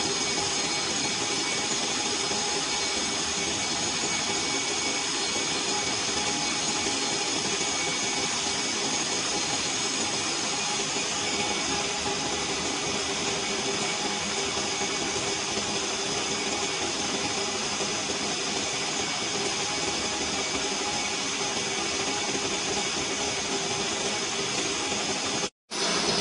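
Large engine lathe turning a 1.4301 (304) stainless steel pipe, its tool cutting along the spinning workpiece: a steady machining noise with a steady whine running through it. The sound drops out for a split second near the end.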